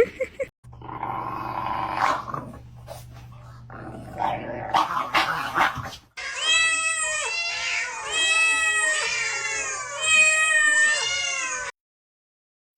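A cat yowling: a long run of drawn-out cries that rise and fall, starting about halfway through and cutting off suddenly near the end. Before it comes a noisier stretch over a low steady hum.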